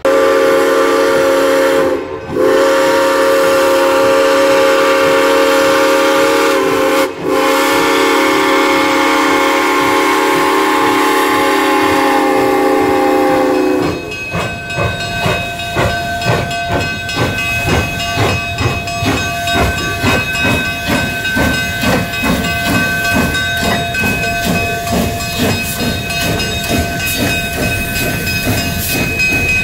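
The steam whistle of a K-36 class narrow-gauge steam locomotive blows a long chord for about 14 seconds, broken briefly twice, as the train departs. Then the locomotive's rhythmic working beat and the cars' wheels clattering over the rails take over as the train rolls past.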